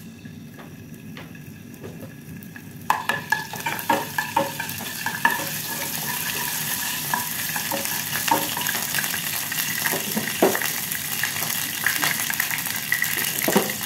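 Chopped ginger frying in hot coconut oil in a small nonstick saucepan: a steady sizzle starts suddenly about three seconds in, with occasional knocks and scrapes of a silicone spatula stirring it against the pan.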